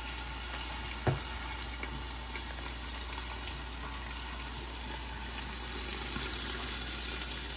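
Salmon pieces and vegetables sizzling steadily under a glass lid on an electric grill pan set low, at 250°F. One light knock about a second in.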